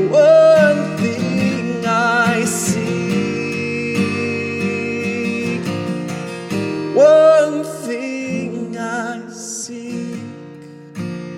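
Live worship music: a strummed acoustic guitar with held, wavering sung notes over it, thinning out near the end before a fresh strum.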